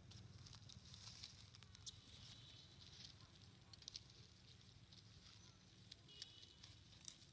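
Near silence: faint outdoor background with a low hum and a high hiss, and a few scattered light clicks.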